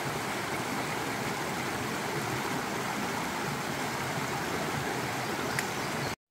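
Steady rush of a mountain creek flowing over rocks at a crossing. It breaks off suddenly near the end.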